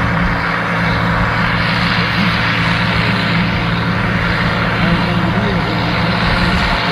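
Heavy harvest machinery engine running at a steady speed, a constant low drone.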